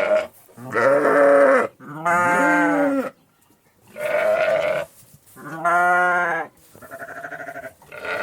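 A flock of sheep bleating: about six separate calls in a row, each about a second long and at different pitches, the one near the end quavering.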